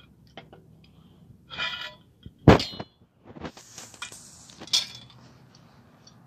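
Metal tools and fixture parts clinking and knocking while a lamppost light fitting is taken apart, with one sharp ringing clink about two and a half seconds in, a short rustling scrape after it, and another clink a couple of seconds later.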